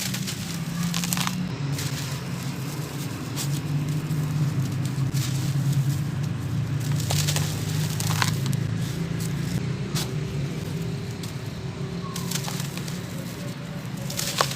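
Dry sand-cement chunks crumbling and crunching, in scattered crackling strokes every second or two over a steady low drone.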